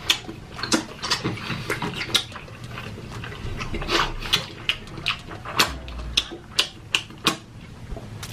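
Close-up mukbang eating sounds: chewing and mouth smacking in a quick, irregular series of sharp clicks.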